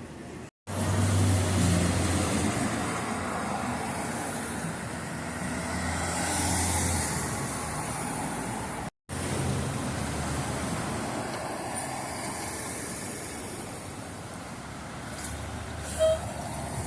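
A large road vehicle's engine running with a steady low hum amid street traffic, cut off twice by short silent gaps. A short beep sounds near the end.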